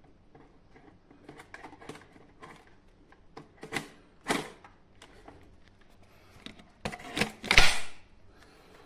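Plastic parts of a cordless stick vacuum being handled and fitted together: scattered clicks and knocks, the loudest cluster near the end. The vacuum motor is not running.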